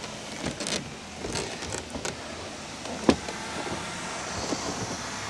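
Steady background noise with a few scattered light clicks and knocks, the sharpest about three seconds in.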